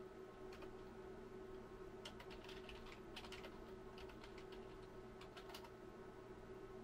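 Buttons on a Rigol DS1202Z-E oscilloscope's front panel pressed by hand: a scattered run of soft clicks, bunched mostly in the middle, over a faint steady hum.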